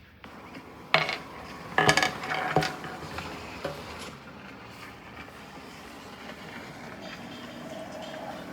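Three sharp clattering knocks about a second apart, then steady background noise.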